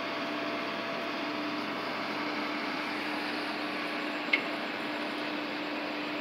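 Steady hiss of wind and distant machinery with a low steady hum, from a crane's man basket hanging high in the air, and one sharp click with a short ring about four seconds in.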